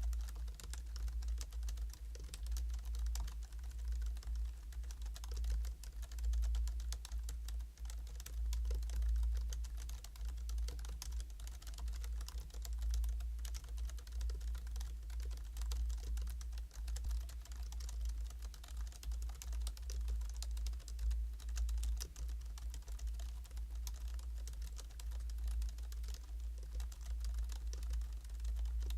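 Continuous typing on a Hansung GK698 OfficeMaster low-noise pantograph (scissor-switch) keyboard: quick, soft key clicks with no pause, over a steady low hum.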